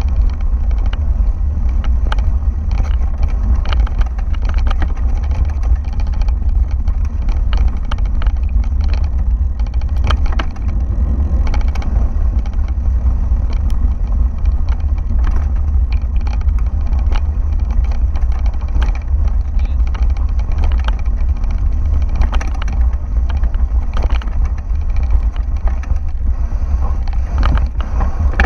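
Mountain bike rolling fast down a gravel dirt trail, heard from a camera mounted on the bike: a heavy, steady low rumble with constant clicking and rattling from the tyres on loose stones and the bike shaking over the bumps.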